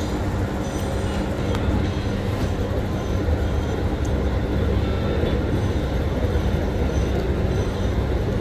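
Steady low rumble of vehicles running, with a constant hum and a few faint clicks.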